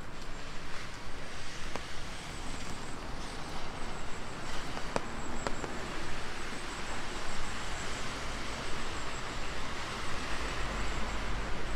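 Steady rain falling, with a few sharp single drops ticking close by. A low traffic rumble sits underneath and swells near the end.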